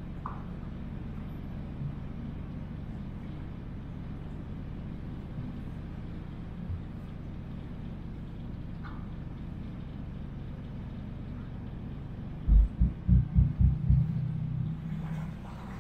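A 40 ft steel yacht's engine running steadily while the boat motors along, a low even rumble. About twelve seconds in there is a quick series of loud low thumps.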